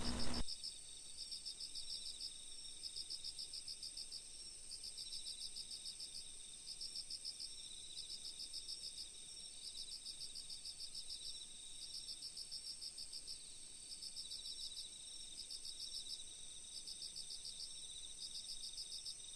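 Crickets chirping in short, rapid pulsed trills that repeat about once a second, over a steady high-pitched insect tone.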